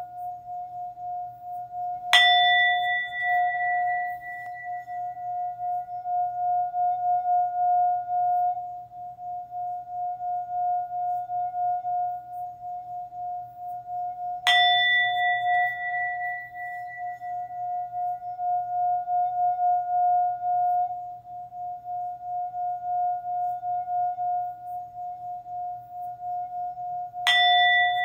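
Singing bowl struck three times, about twelve seconds apart. Each strike rings on in a steady, wavering hum, with brighter overtones that fade over a few seconds.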